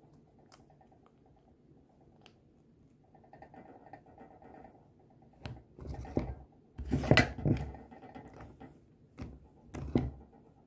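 Small plastic toy parts being handled and fitted together with faint clicks. Then several plastic knocks and clatters as pieces hit the tabletop, the loudest about seven seconds in.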